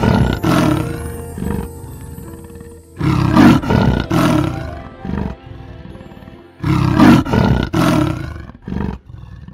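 A large animal roaring in three bouts a few seconds apart, each bout several pulses long, over soft background music.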